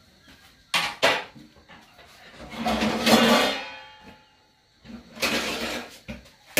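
Kitchen cookware and utensils knocking and scraping while cooking: two sharp knocks about a second in, then a louder, longer scraping clatter around the middle and another shorter one near the end.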